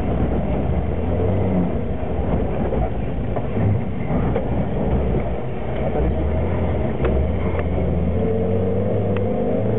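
Alfa Romeo 145 rally car heard from inside the cabin, its engine working hard under load over steady tyre and road noise, with a few sharp ticks after the middle. Near the end the engine revs climb steadily as it accelerates.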